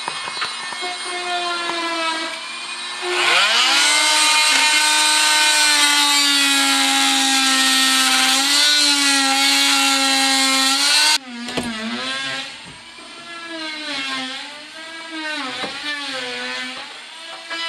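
Small power tool cutting through drywall, running with a steady whine whose pitch dips and recovers as the blade bites. It runs hardest for several seconds, stops abruptly about eleven seconds in, then cuts again more lightly with a wavering pitch.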